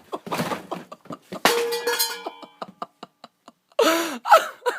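A steel ashtray hits the floor with a ringing metallic clang about a second and a half in. A quick run of ticks follows as it comes to rest. Near the end a person's voice is heard.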